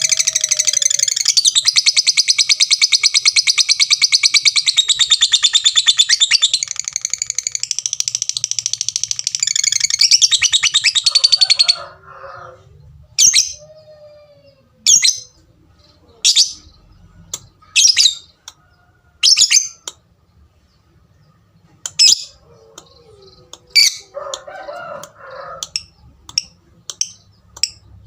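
Lovebird giving a long rapid chattering trill, the 'ngekek' prized in fighter lovebirds, for about twelve seconds. It then breaks into single sharp 'tik' calls about every second and a half, coming quicker near the end.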